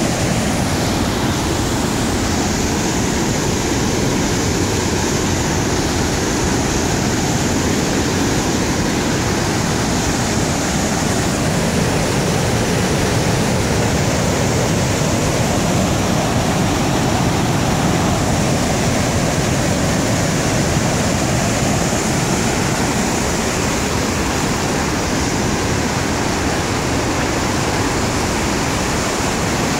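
Twister Falls on Eagle Creek: a large volume of white water pouring down a twisting rock chute, making a loud, steady rushing roar.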